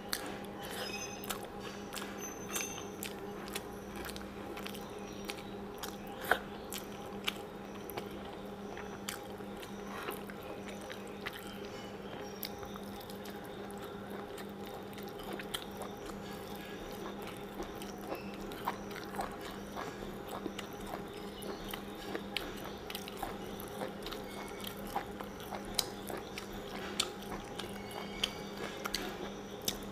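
Close-up eating sounds of a person biting and chewing pieces of mutton curry held in the hand: irregular wet smacks and sharp clicks of teeth on meat and bone. A steady low hum runs underneath.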